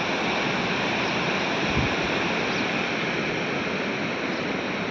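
Steady rush of a rocky mountain river running over stones, with a brief low thump about two seconds in.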